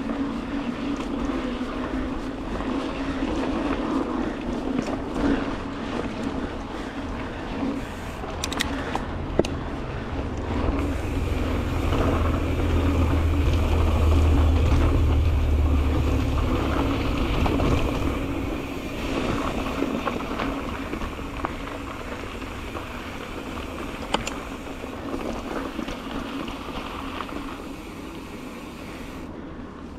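Mountain bike rolling along a dirt singletrack trail: steady tyre and rattle noise with wind rumble on the microphone that swells through the middle, and a few sharp knocks.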